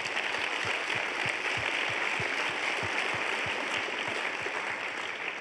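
Auditorium audience applauding steadily, tapering off near the end.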